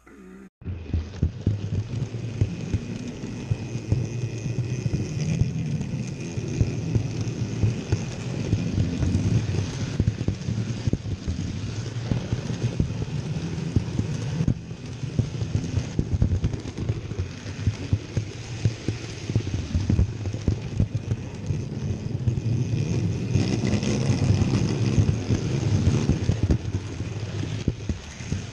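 An electric model train runs along the track, heard from a wagon riding on the train: a fast, uneven clatter of wheels over the rails and rail joints with a steady thin motor whine. It starts about half a second in.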